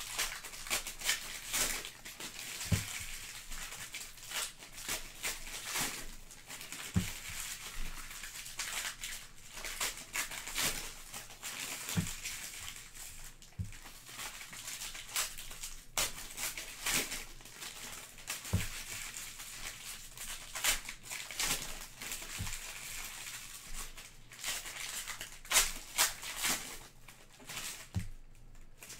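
Foil trading-card pack wrappers crinkling and tearing as packs are opened by hand, with cards handled and set down in stacks, and a few soft knocks on the table.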